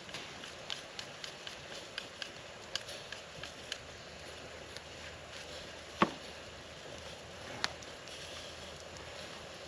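Campfire crackling, with quick pops through the first few seconds. There is one loud sharp knock or snap about six seconds in and a smaller one shortly after.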